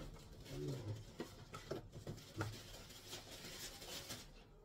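Faint rustling of clear plastic wrapping and a few light knocks as a new electric demolition hammer is handled in its plastic carry case.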